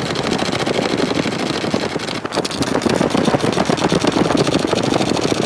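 Mounting screws being turned out of a steel TV wall bracket with a tool: a steady, fast mechanical rattle that runs without a break.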